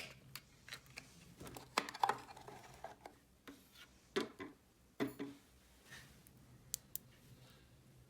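Small plastic toy pieces being handled: irregular light clicks and taps, a few sharper ones about two, four and five seconds in.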